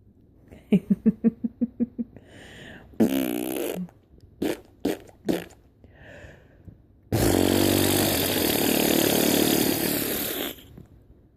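A run of silly mouth noises: a quick pulsing trill of about nine beats, a short voiced burst, four sharp pops, and then a long, loud blown raspberry lasting about three seconds.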